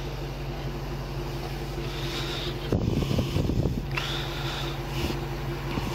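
Steady low hum of an idling vehicle, with a burst of clothing scuffing against the body-worn camera's microphone about three seconds in as the camera shifts.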